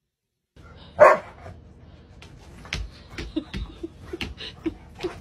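A dog barks once, loudly, about a second in, then gives a series of short, quieter yips and whimpers among soft clicks.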